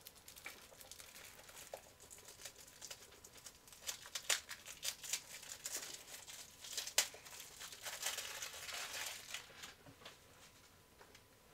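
Crinkly packaging being handled: a run of sharp crackles, clicks and rustles, busiest and loudest in the middle and dying away near the end.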